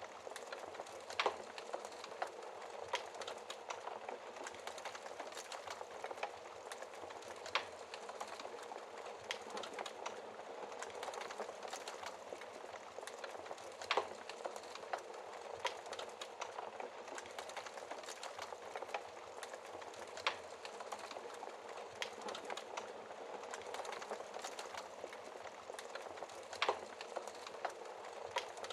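Fire crackling in a fireplace: a steady soft hiss with irregular sharp crackles and a few louder pops.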